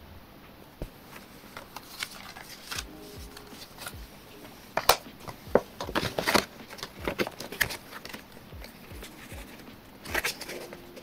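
Paper-card packaging being handled and pulled open by hand: a run of crinkles, taps and scrapes. It is sparse at first, busiest in the middle, and picks up again near the end.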